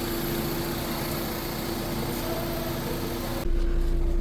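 2005 Honda Civic engine idling steadily, with its broken VTEC solenoid wire just repaired and no fault code showing. Near the end the sound cuts abruptly to a duller, deeper hum.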